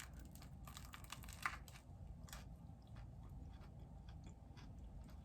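Faint chewing: soft, scattered mouth clicks and small crunches of someone eating, with one slightly louder click about a second and a half in.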